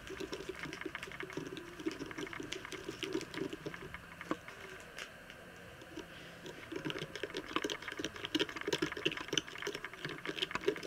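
A small spoon stirring borax and water in a little plastic cup to mix slime activator, making quick light clicks and scrapes against the cup's sides with a faint slosh. The clicking eases off about halfway through, then picks up again.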